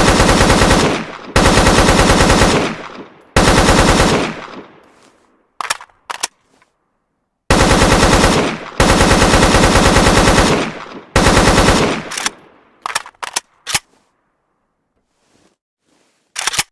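AK-47 assault rifle firing on full automatic in long bursts, each trailing off in a fading echo, with a few single shots and short bursts between them and one last short burst near the end.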